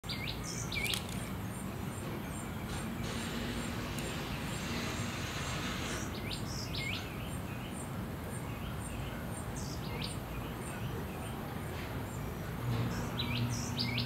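Small backyard songbirds giving quick, sweeping chirps in several short bursts over a steady outdoor hiss, with a faint high ticking repeated a couple of times a second. A low hum comes in near the end.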